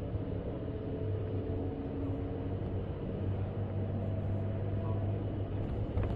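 Steady low rumble of a moving road vehicle heard from inside the cabin, with a faint drifting hum from the drivetrain.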